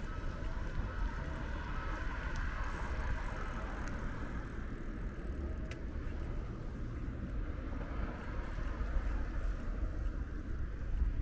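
Steady street ambience of road traffic noise with a deep rumble, and a faint click about halfway through.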